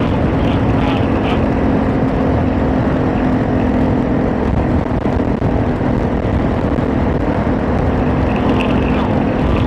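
Motorcycle cruising at a steady speed: loud wind rush over an exposed mounted-camera microphone with a steady engine hum underneath.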